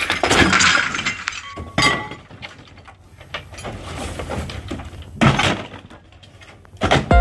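Renovation debris being tossed into a dumpster, crashing and breaking with glassy clinks. There is a crash at the start, another about two seconds in, and a louder one about five seconds in, with smaller rattles between.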